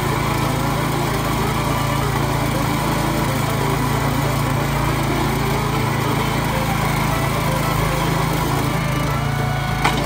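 Small gas engine of a Harbor Freight towable backhoe running steadily, driving the hydraulic pump while the bucket digs. A single sharp click just before the end.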